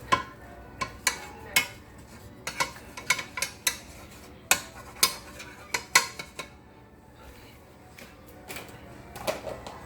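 A metal utensil clinking and tapping against a pan as butter is spread around it: a run of sharp, irregular clicks that thins out about six and a half seconds in, with a few more near the end.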